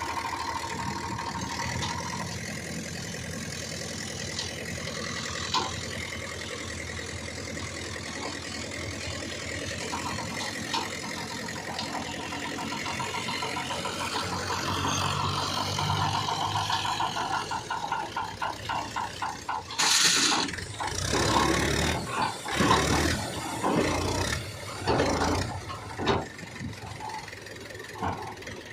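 Diesel engine of heavy earthmoving machinery running steadily, then a series of loud, irregular noises from about twenty seconds in.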